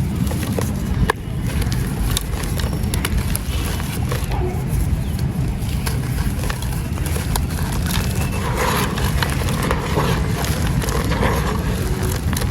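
Dry, gritty sand cement crumbling and being crushed, a dense crackle of small crunches and clicks, growing fuller about two-thirds of the way in.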